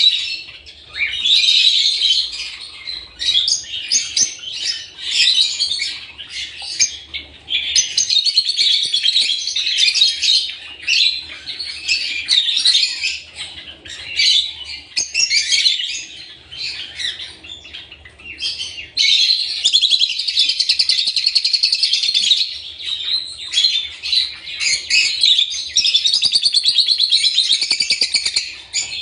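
Lovebirds chattering: constant shrill, high-pitched chirps and squeaks, running into a long, unbroken stretch of rapid chatter in the second half.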